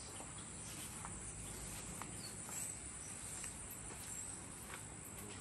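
Steady high-pitched chorus of insects in overgrown summer grass, with a few faint taps.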